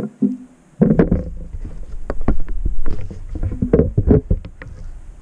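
Handling noise from the GoPro camera being picked up and moved on its mount: a dense run of close knocks, scrapes and rubbing with a heavy low rumble, starting about a second in and tapering off near the end.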